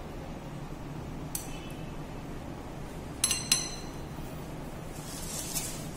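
Light clinks of a metal spatula against a ceramic plate: a faint tap about a second and a half in, then two sharp, ringing clinks just after three seconds, over a low steady room hum.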